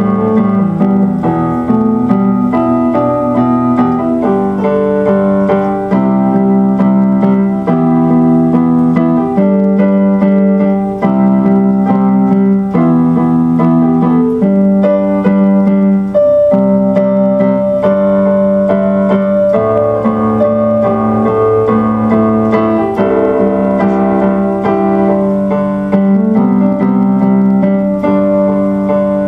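Solo keyboard music in a piano voice: slow, sustained chords over a steady bass note, the harmony changing every second or two.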